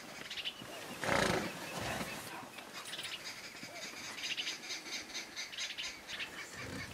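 A hippopotamus gives a loud, short snort of breath about a second in. A fast run of soft, evenly spaced ticks follows from about three to six seconds in.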